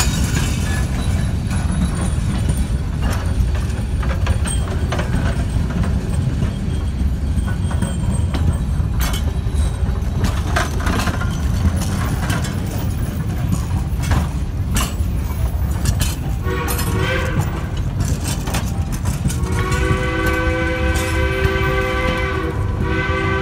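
Narrow-gauge passenger cars of the Durango & Silverton steam train rolling slowly past, with a steady low rumble and clicking of wheels over the rail joints. About sixteen seconds in, the steam locomotive's chime whistle sounds a short blast, then a long blast of several tones at once from about nineteen seconds, broken briefly near the end.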